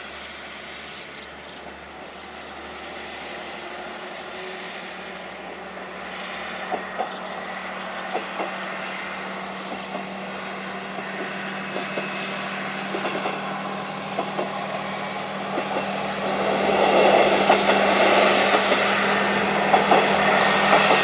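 KiHa 120 single-car diesel railcar pulling away from a station, its diesel engine running with a steady drone that grows louder as the car gathers speed and comes nearer. From about six seconds in, the wheels click over rail joints, often in pairs, and the sound is loudest near the end.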